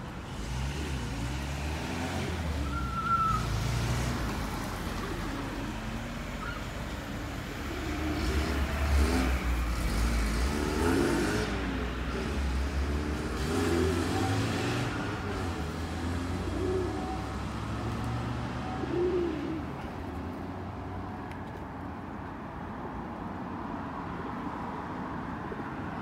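Road traffic rumbling, with cars passing and the low rumble louder for a few seconds about a third of the way in.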